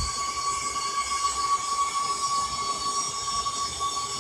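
Vacuum emulsifying mixer running, its motor drive giving a steady whine over a mechanical hiss.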